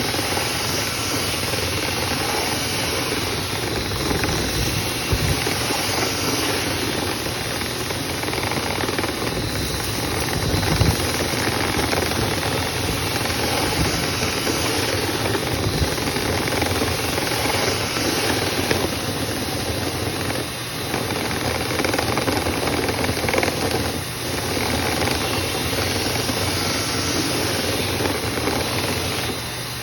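Dryer vent cleaning equipment running steadily: a motor's hum under a loud rush of air, dipping briefly twice about two thirds of the way through.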